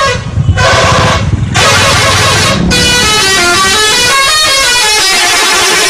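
Indonesian bus 'telolet' musical horn playing a tooting multi-note melody, loud, in several blasts broken by brief gaps, over a low rumble.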